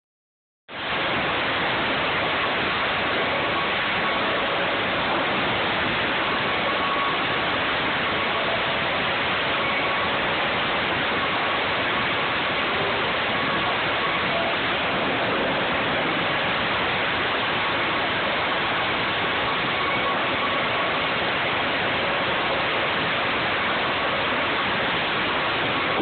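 Sawmill headrig and its roller conveyors running together in a steady, dense roar of machinery, with a faint steady whine on top and no break in the din.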